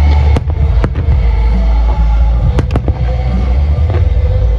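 Fireworks going off, with several sharp bangs from bursting shells over loud music with a heavy bass.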